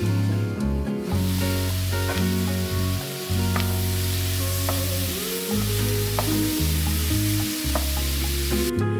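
Asparagus sizzling as it fries in a pan while it is stirred with a wooden spatula. The sizzle is muffled under a glass lid for about the first second, then comes through fully once the lid is off. Background music with low notes plays underneath.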